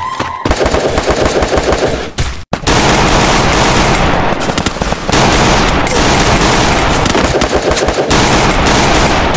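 Rapid automatic gunfire from a mobile shooting game, nearly continuous, with a short break about two and a half seconds in.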